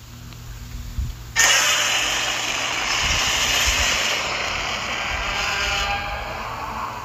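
Godzilla roar sound effect: a low rumble with a few deep thuds, then about a second and a half in a sudden, loud, harsh roar that holds for about four and a half seconds before tapering off.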